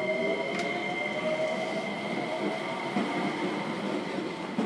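Inside a JR Kyushu 305 series electric train car standing at a station: a steady high whine of the onboard electrical equipment, with a lower tone slowly rising over the first couple of seconds. There is a sharp click about half a second in.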